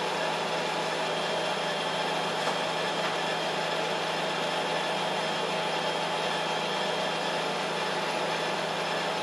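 Steady mechanical hum of a 3D subsurface laser engraving machine running as it etches inside a glass block, with its fan noise and a few faint steady tones and no separate clicks or knocks.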